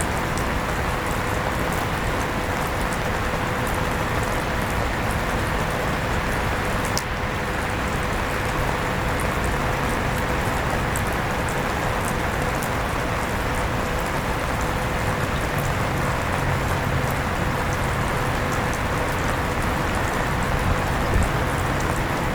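Steady rain falling while an electric fan runs, its motor giving a steady hum.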